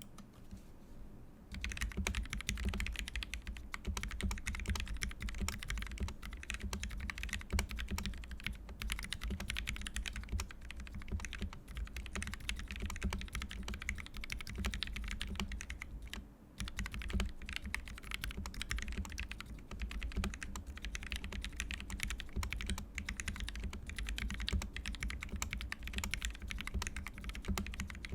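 Constellation custom mechanical keyboard with a brass plate and Tealios linear switches (lubed with 205g0, TX films) being typed on quickly and continuously. Rapid keystrokes start about a second and a half in, with one short pause about halfway through.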